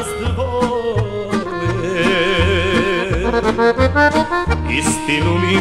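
Serbian folk music from a 1970s record: a folk ensemble led by accordion, with melody lines over a steady bass beat.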